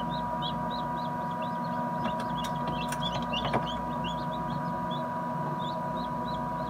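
Newly hatched chicks peeping inside an incubator: short high peeps a few times a second over the incubator's steady hum.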